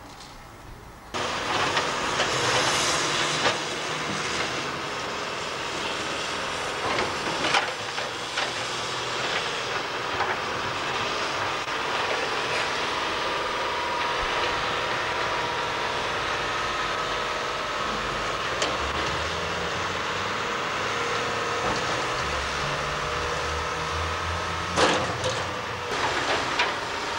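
Heavy demolition machinery working on rubble: a steady engine drone with intermittent clanks and knocks. It starts abruptly about a second in.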